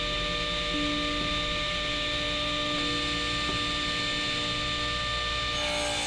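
Table saw running with its blade spinning free, a steady motor hum and whine. Near the end the blade starts cutting into an oak board, adding a rushing cutting noise.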